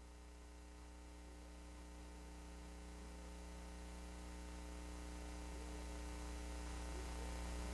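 Steady electrical mains hum with its overtones and a faint hiss, slowly getting louder.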